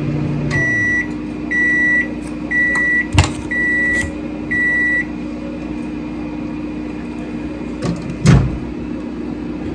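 Microwave oven finishing its cycle: its low running hum stops about half a second in, then five steady beeps about a second apart. A sharp click comes about three seconds in and a louder thump near the end.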